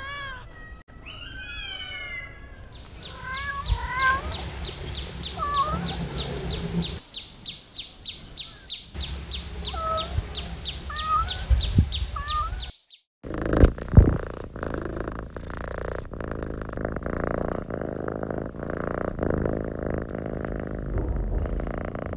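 Kittens meowing in short calls that bend up and down, over a fast regular ticking of about four a second. After a brief break, the calls give way to a denser, steady rough noise with two sharp knocks.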